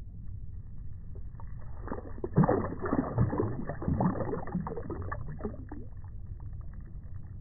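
Shallow water splashing and sloshing at the shoreline as a released redfin (European perch) kicks out of the hand and swims off, loudest about two and a half seconds in and settling by about five and a half seconds. A steady low rumble of freeway traffic runs underneath.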